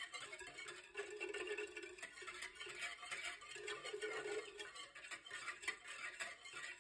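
Wire whisk beating a thin liquid in a ceramic bowl, sloshing with rapid ticks of the tines against the bowl's side.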